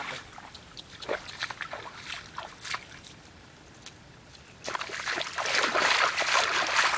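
Footsteps wading through shallow muddy water: scattered splashes and sloshes at first, a quieter moment, then heavier, louder splashing from about two-thirds of the way in as the steps come close.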